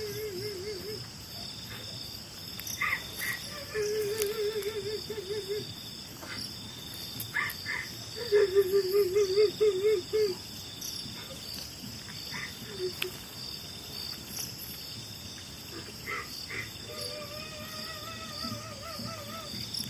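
Crickets and other insects chirping steadily at night, with a distant wavering, wailing cry in several long stretches, loudest about eight to ten seconds in. The listeners take the cry for a girl crying.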